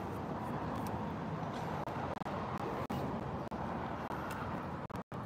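Steady outdoor background noise of road traffic, with the sound cutting out for a moment near the end.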